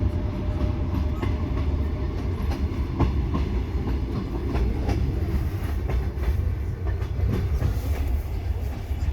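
Train running: a steady low rumble from the rolling carriage with scattered light clicks and knocks from the wheels and couplings.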